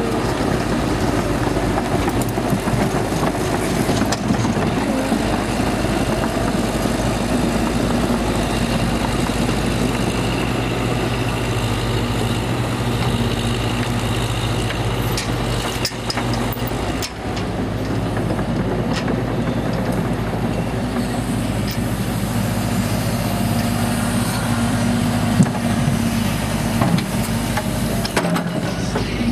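Cat excavator's diesel engine running steadily while the machine is unloaded off a truck, with a few short clanks.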